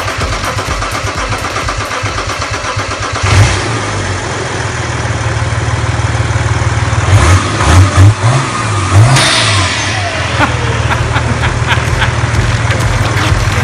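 BMW M57D30TU2 straight-six turbodiesel starting for the first time. It catches about three seconds in and idles, is revved a few times around the middle, and gives a whistle that falls in pitch as the revs drop back. It then settles to a steady idle.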